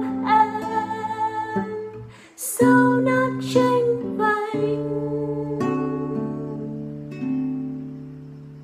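Nylon-string classical guitar fingerpicked while a woman sings. About halfway through the singing stops and the last notes are left ringing, fading away.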